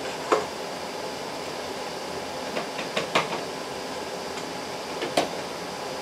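Metal ladle clinking against the rim of a stainless steel pot as salsa is ladled into a canning jar: a sharp clink about a third of a second in, a short run of clinks around three seconds, and two more near five seconds, over a steady background hum.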